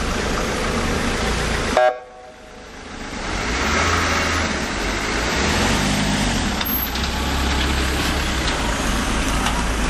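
Fiat Doblò van driving past and away, its engine and tyres heard over a steady low rumble. About two seconds in there is a short, loud pitched blip, then the sound drops away suddenly and swells back up over the next second or so.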